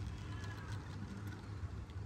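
Hand-cranked plastic spinner toy whirring as its crank is turned: a low, rapidly pulsing rumble from the plastic gearing, with faint clicks.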